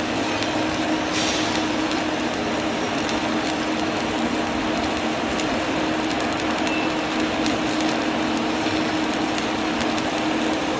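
Electric arc welding on a fire-tube boiler shell: the steady crackling hiss of the welding arc, with a constant low hum underneath.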